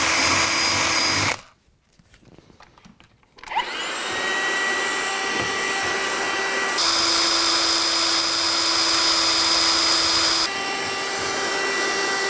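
Cordless drill running as it bores a hole into the plywood baseboard, stopping about a second and a half in. About two seconds later a handheld vacuum cleaner starts up with a rising whine and runs steadily, sucking up the drilling dust; its motor note drops for a few seconds in the middle and then comes back up.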